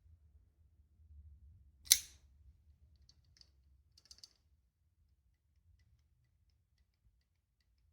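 A single sharp click about two seconds in, followed by a few faint small ticks over the next two seconds.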